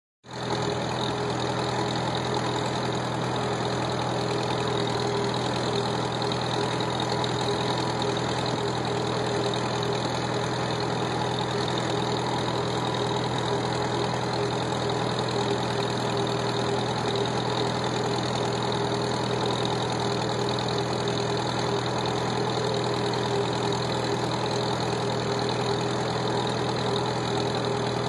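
Farmall H tractor's four-cylinder engine running steadily under way, at an even pitch and loudness throughout.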